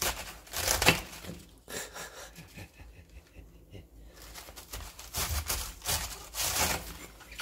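Kitchen knife cutting through a cabbage: a few crunchy cuts, one loud about a second in and a cluster of them near the end.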